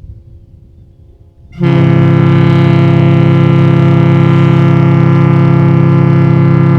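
Kahlenberg T4 three-bell bronze ship horn sounding a long, steady blast that starts suddenly about a second and a half in: a loud, deep chord of several tones held without change. Before it, the faint tail of the previous blast dies away.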